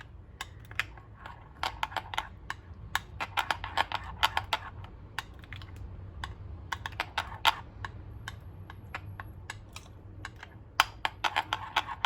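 Rapid, irregular light clicks and taps, several a second in clusters, over a steady low hum.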